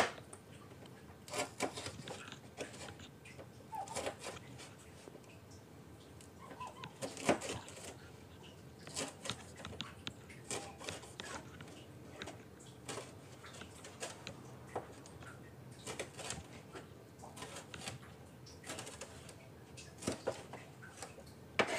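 A kitchen knife slicing a red chilli on a plastic cutting board. Irregular taps sound as the blade comes down on the board, a few of them louder.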